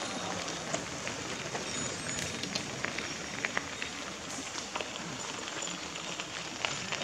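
Bicycle tyres rolling over loose gravel as riders pass, a steady crunching hiss dotted with many small crackles and clicks of stones under the wheels.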